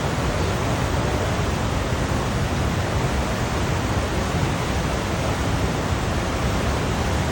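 Ocean waves as a steady, even rushing noise, heaviest in the low end, with no audible rise and fall of single breakers.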